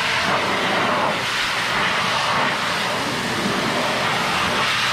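High-velocity pet dryer blowing a steady rush of air through its hose and nozzle onto a wet dog's coat.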